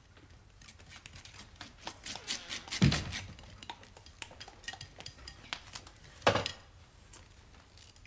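China and cutlery clinking at a breakfast table: many small clicks of knives and forks on plates and cups on saucers, with two louder knocks about three and six seconds in.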